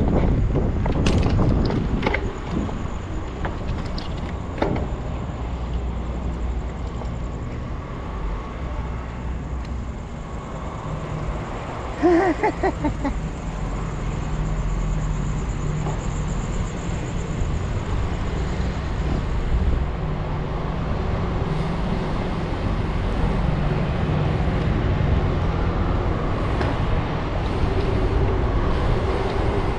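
Wind rushing over the microphone and tyre rumble from a bicycle ridden at speed, with a few sharp knocks over bumps in the first five seconds.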